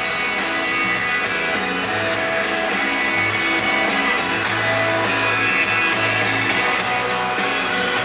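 Music with guitar playing, a melody of changing notes over a steady level.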